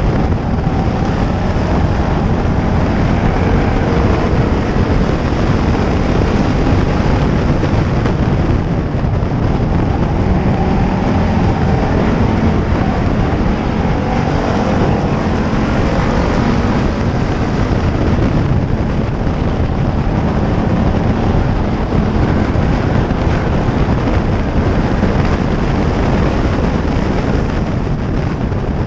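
Onboard sound of a pure stock race car at racing speed: its engine running hard, loud and steady, with the engines of the closely following and leading race cars mixed in.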